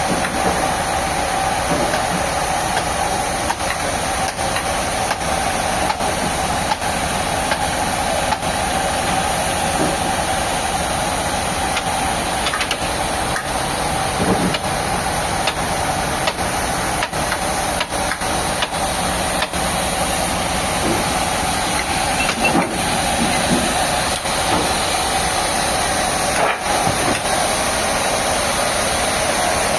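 Sawmill machinery running steadily: a loud, continuous mechanical drone with a strong mid-pitched hum and a hiss over it.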